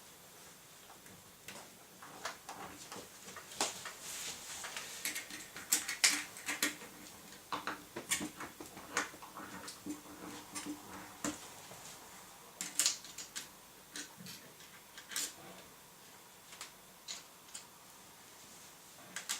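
A CPU cooler being screwed down onto a motherboard by hand: irregular small clicks, ticks and light scrapes of the screwdriver against the screws and metal parts.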